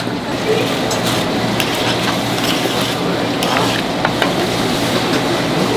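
Cooking utensils clinking and scraping against steel pans as tteokbokki simmering in sauce and a pot of boiling water are stirred. Scattered sharp clinks sound over a steady background hiss.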